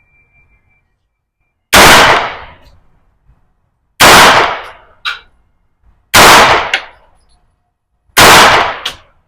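Four 9mm shots from an AR9-style pistol-calibre carbine fired slowly, about two seconds apart, each report trailing off in a short echo, with a lighter sharp clink shortly after three of them.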